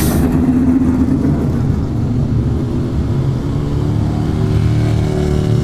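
Monster truck motor running and revving as the truck drives, a loud low drone with held pitches that shift slightly.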